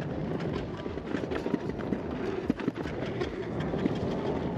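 Rustling and scraping of dirt and brush as an electric unicycle and its rider go through the bushes off-trail, with many small crackles and clicks over an even noise. There is no single loud impact.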